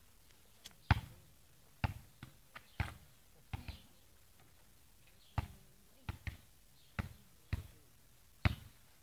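A football being kicked and bounced: about a dozen sharp thumps at uneven intervals, some coming in quick pairs.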